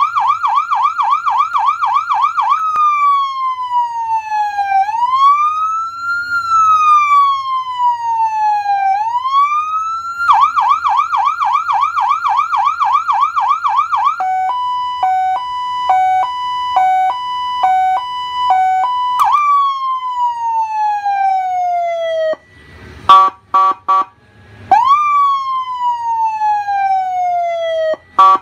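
PA300 100W 12V electronic siren through its horn speaker, cycling through its tones. It opens with a fast yelp, then a slow wail that falls and rises, then the yelp again. Next comes an alternating hi-lo tone, then long falling sweeps, a few short choppy blasts after a brief break, and another falling sweep near the end.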